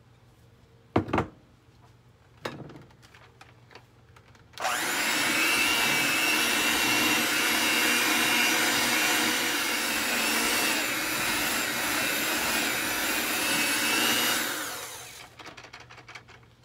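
Electric hand mixer running steadily in a glass bowl, its beaters working butter-sugar mixture into flour to make cookie dough; it starts about four and a half seconds in, runs about ten seconds and dies away near the end. A sharp knock comes about a second in.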